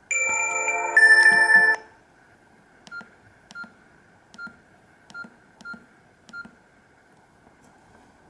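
Nokia E66 mobile phone's speaker playing a short two-note alert tone, the second note louder, followed by six short, unevenly spaced beeps, each with a click.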